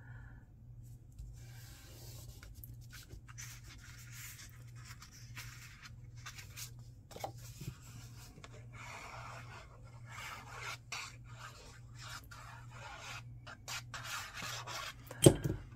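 Paper crafting handling noise: cardstock sheets sliding and rubbing against each other, and the fine tip of a liquid glue bottle scratching as it is drawn across the card. A single sharp knock near the end.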